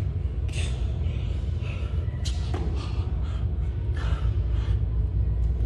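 Burpees on a gym floor: a few sharp thuds and scuffs as hands and feet land, over a steady low rumble.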